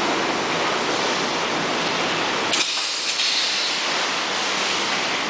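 Steady hissing din of an SBS bitumen membrane production line running. About two and a half seconds in there is a brief knock, after which the sound turns thinner and hissier.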